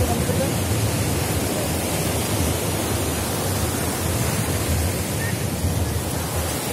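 Sea surf breaking and washing up the sand in a steady rush, with wind rumbling on the microphone.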